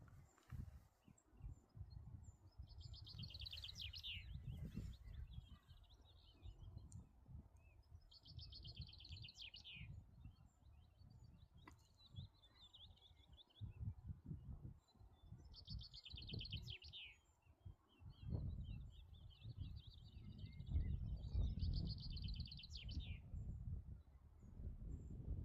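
A songbird singing four short phrases, each a fast trill falling in pitch, spaced several seconds apart, over an uneven low rumble.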